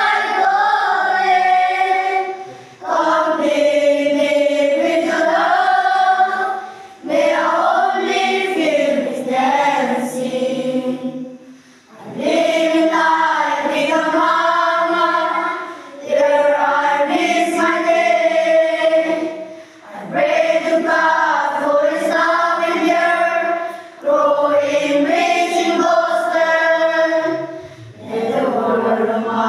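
A group of children singing together as a choir, with no instruments, in phrases of about four seconds separated by short breaths.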